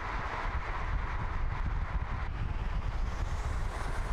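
Steady rushing noise of a car travelling at speed on tarmac: tyre rumble and wind, with no distinct engine note standing out.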